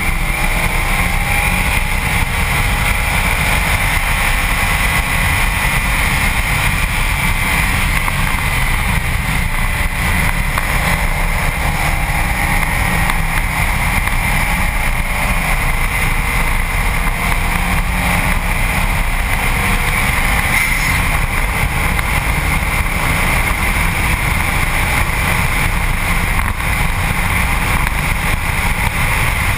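Wind buffeting a bumper-mounted camera at track speed, with steady tyre and road roar; the Subaru WRX STi's turbocharged flat-four is only faintly heard underneath, its pitch rising briefly near the start and again partway through.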